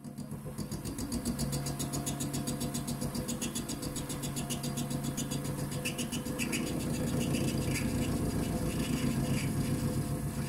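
Optimum TU 2004V mini lathe running with its chuck spinning and the tool cutting a brass workpiece: a steady motor hum with a fast, even pulsing. Higher scraping cutting noise comes and goes in the second half.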